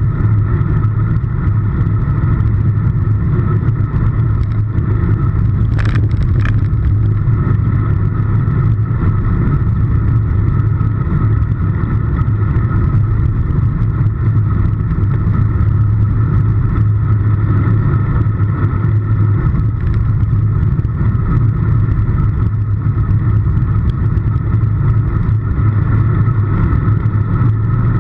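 Steady wind rush and rumble on a handlebar-mounted camera's microphone while riding a road bike at speed, mixed with tyre noise on tarmac. A couple of brief clicks about six seconds in.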